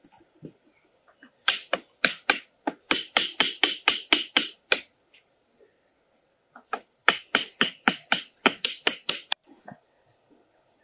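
Hammer striking in two quick runs of sharp blows, about five a second, each run a few seconds long with a pause of about two seconds between.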